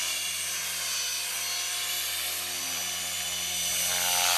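ALIGN T-Rex 500 Pro DFC electric RC helicopter flying: the high whine of its 500MX brushless motor and drive gears over the steady hum of the spinning rotor. It grows louder near the end.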